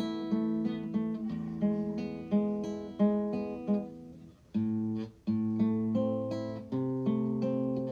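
Background music on acoustic guitar: plucked notes and chords at a steady pace, each ringing out after it is struck, with a short break about four and a half seconds in.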